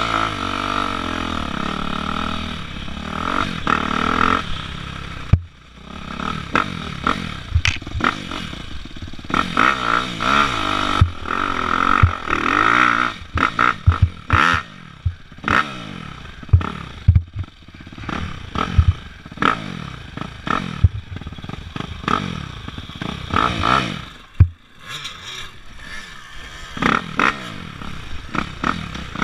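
Dirt bike engine being ridden hard, revving up and down over and over, with many sharp knocks and clatter from the bike as it bounces over rough ground.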